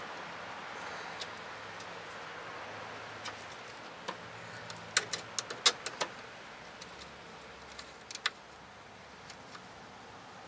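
Scattered light metallic clicks and clinks, most of them about five to six seconds in: small metal hardware of a new brake line knocking as its flare nut is worked toward the fitting, over a faint steady hiss.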